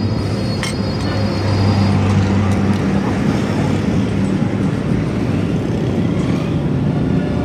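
Steady low rumble of motor-vehicle engines, with a single light click a little over half a second in.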